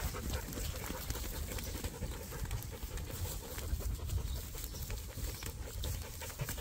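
Sheep rustling and pulling at a pile of loose hay, a steady run of small crackles and clicks over a constant low rumble.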